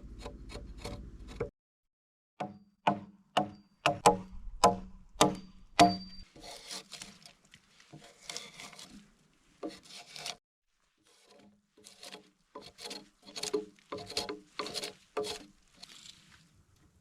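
An axe chopping into a log: a series of sharp wooden knocks about two a second, with rasping, scraping strokes in between. Quick faster clicks open it and stop abruptly.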